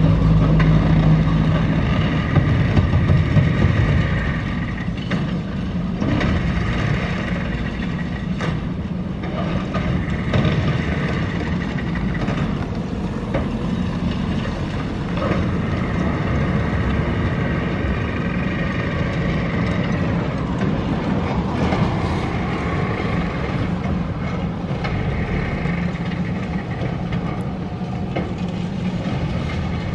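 Long-reach demolition excavator running with a steady engine drone while its hydraulic jaws work at the concrete floors, with scattered sharp cracks and knocks of breaking concrete and debris.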